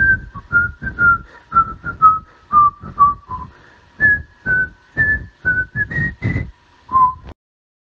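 A whistled tune with a light beat under each note, played as intro music. The melody steps down, climbs again and ends on a low note, cutting off suddenly about seven seconds in.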